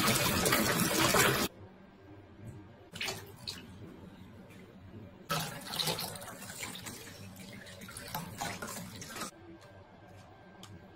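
Tap water gushing loudly into a bathtub for about a second and a half, then quieter splashing with short swells of water poured from a plastic jug over a wet cat.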